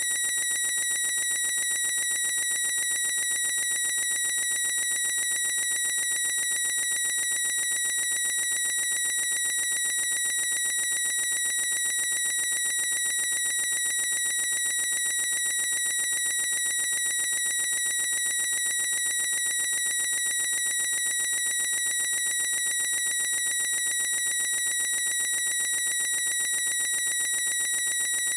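A boy's high-pitched squeak, looped into one unbroken, unchanging squeal at a single pitch with a fast, even flutter.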